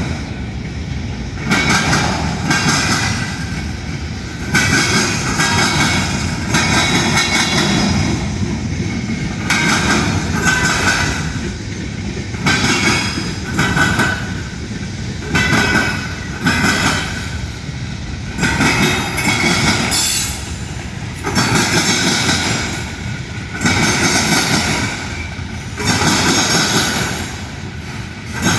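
Union Pacific train's railcars rolling past, a steady rumble and wheel clatter that swells in even surges about every two seconds as each car goes by.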